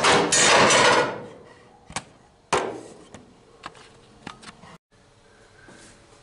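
Handling noise and knocks: a loud rustling scrape in the first second, then two sharp knocks about two and two and a half seconds in, followed by lighter clicks and taps.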